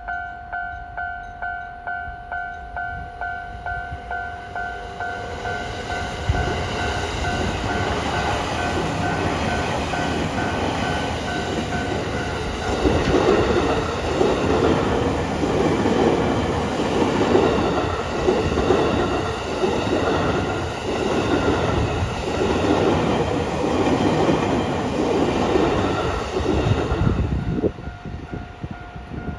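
Japanese level-crossing warning bell ringing steadily, about two strikes a second. A Tokaido Line E231 series 1000 subseries 15-car electric train then rolls slowly over the crossing, its wheels clacking rhythmically over the rail joints and drowning out the bell for about fifteen seconds before passing and letting the bell be heard again near the end.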